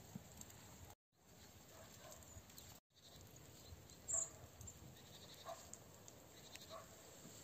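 Goats bleating faintly, a few short calls a second or so apart, the one about halfway through the loudest.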